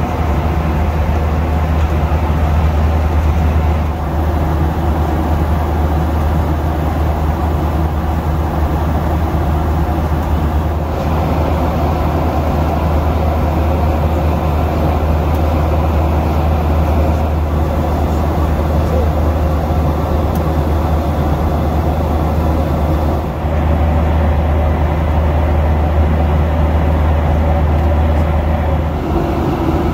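Steady cabin noise of a Boeing 737-800 in cruise flight: a loud, deep rumble of the CFM56 engines and the airflow, shifting slightly in tone a few times.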